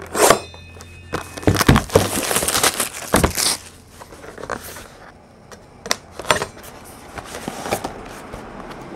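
Cellophane shrink wrap being torn and pulled off a sealed 2011 Topps Marquee baseball card box. It crinkles loudly in short bursts for the first few seconds, then turns to quieter rustling with a few light taps.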